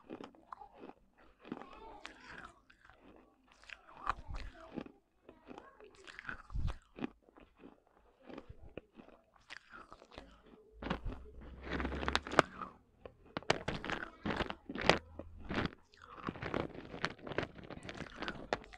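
Broken clay pot pieces being bitten and chewed close to a clip-on microphone: irregular sharp crunches, louder and closer together in the second half.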